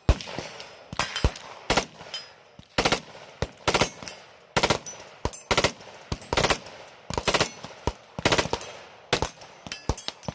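Gunfire on a shooting range: a string of sharp single shots, then from about three seconds in short rapid automatic bursts roughly once a second, loud and concussive.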